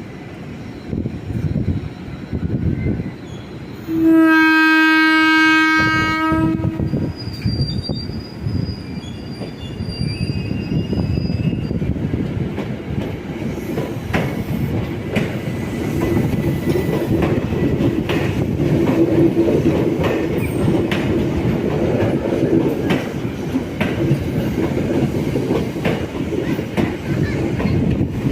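Electric commuter train sounding one horn blast of about two and a half seconds on a single steady note, then running through the station with wheels clacking over rail joints, a thin high squeal from the wheels for a few seconds after the horn, and a rumble that grows louder in the second half.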